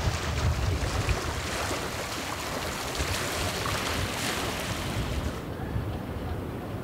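Outdoor wind: low gusts buffeting the microphone over a steady airy rush. The hissy upper part thins out about five seconds in.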